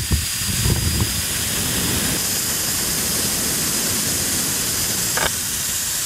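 Air hissing steadily out of a screw puncture in a motorcycle's rear tire as the screw is backed out, with a few light clicks about a second in and a short tick near the end.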